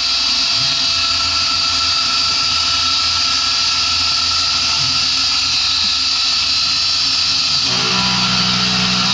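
CNC milling machine running a facing cut in aluminium with a 12 mm three-flute end mill at 4000 rpm, heard as a loud, steady hiss under the air-mist coolant spray. Near the end, low steady musical notes come in.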